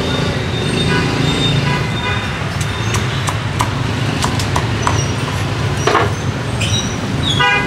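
Cleaver chopping roast pork on a thick wooden chopping block: sharp knocks at irregular intervals. Steady street traffic rumbles underneath, with a short vehicle horn toot near the end.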